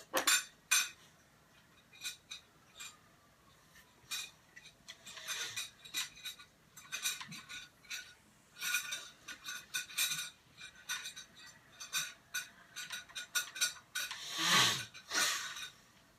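Light, irregular clicks, taps and clinks of makeup containers and brushes being handled while makeup is dabbed on. Near the end there is a louder short rushing sound.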